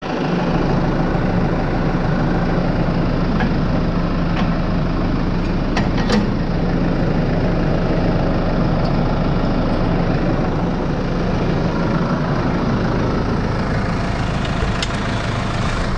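Case IH Farmall 95C tractor's diesel engine idling steadily, with a few sharp metallic clicks as the loader and cab door are handled.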